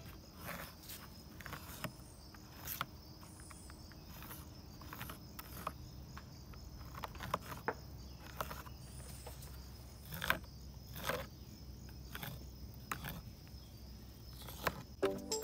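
Faint outdoor ambience with a steady high insect drone, and scattered light clicks and scrapes as a pencil is drawn around a plate to mark a circle on a wooden board.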